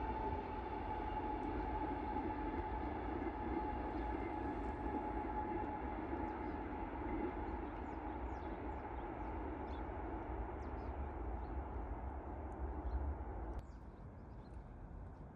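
A train passing: a steady rumble with a high whine that slowly falls in pitch. It cuts off abruptly near the end, leaving quieter outdoor ambience with a few faint high ticks.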